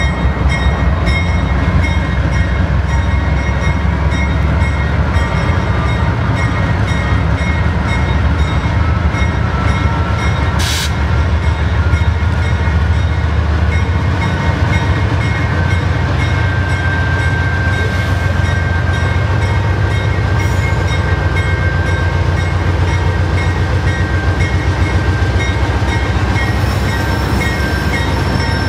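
CSX GE freight diesel locomotives, led by two AC44CWs, passing close by with a heavy, steady engine rumble. A thin whine slowly rises in pitch over a few seconds, and there is a single sharp click about eleven seconds in.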